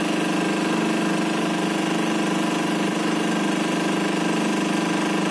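Compression testing machine's hydraulic pump running with a steady, even hum while it loads a concrete cube; the load is still climbing and the cube has not yet failed.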